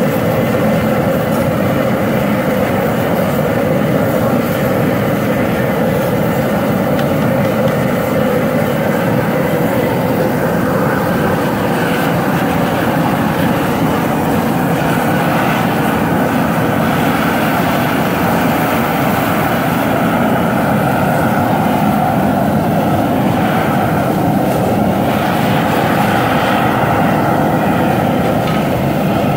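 Propane jet burner running at full flame under a large crawfish boil pot: a loud, steady roar.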